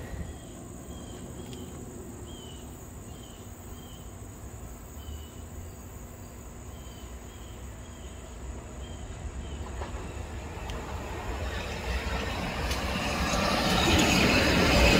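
Quiet outdoor ambience with a steady high insect drone and a scattering of short chirps. Then an electric commuter train approaches, its rumble and wheel noise growing steadily louder over the last few seconds.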